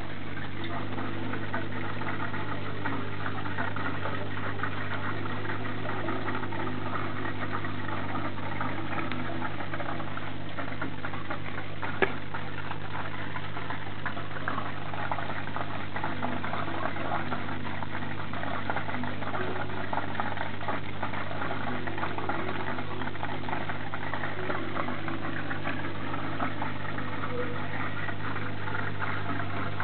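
Aquarium pump running with a steady low hum and a fluttering, water-like hiss above it, and a single sharp click about twelve seconds in.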